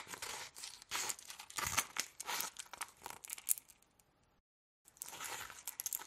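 Army flask being handled: a run of short clicks, knocks, scrapes and rattles from the flask and its cap. The handling stops for about a second just past the middle, then starts again.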